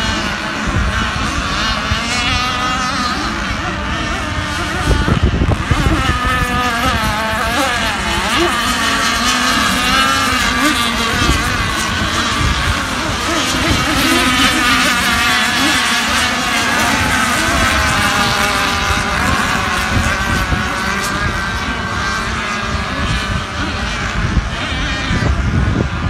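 A pack of radio-controlled racing boats running flat out on the course: several small engines whining at once, their pitches wavering up and down as the boats race.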